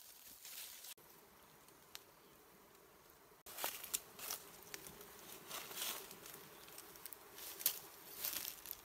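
Honeybees clustered on an open comb, buzzing in a steady hum, with crackling rustles of leaves and twigs as the comb's branch is handled, busiest from about three and a half seconds in.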